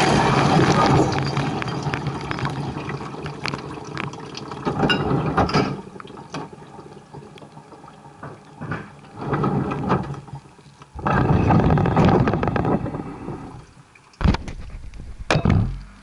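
Dishwasher spraying water over the racks inside its tub, a heavy rush that dies away over the first several seconds. After that come separate bursts of sloshing water noise, the loudest from about eleven to thirteen seconds in, then two sharp knocks near the end.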